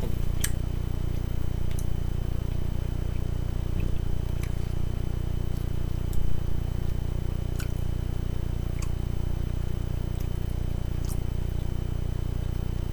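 Eating sounds: a few faint clicks of a fork in a plastic salad container and quiet chewing of salad. A steady low hum runs underneath and is the loudest thing throughout.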